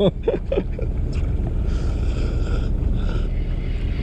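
Steady low rumble of a fishing boat at sea, with wind on the microphone. A short hissing rustle comes about two seconds in.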